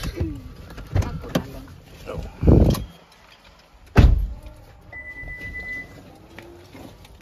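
Several dull thumps, the loudest about four seconds in, followed about a second later by a short, steady high beep.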